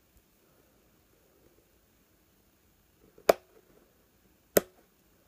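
Sprue cutters snipping through plastic model-kit sprue: two sharp snaps, a little over three seconds in and again about a second later.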